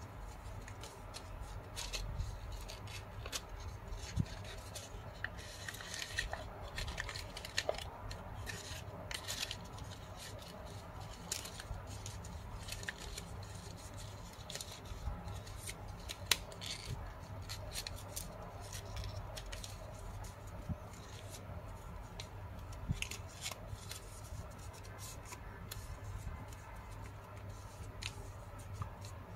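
Origami paper crinkling and rustling under the fingers as the flaps of a paper ninja star are folded, pressed and tucked in, with irregular small crackles and clicks throughout.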